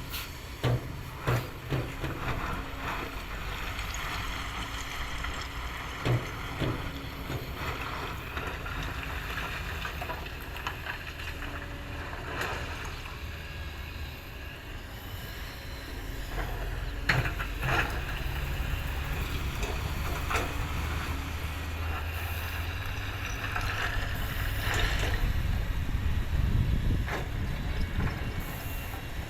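Heavy diesel engine running steadily, growing louder and deeper from about halfway through as it takes more load. Scattered sharp knocks and clanks break over it.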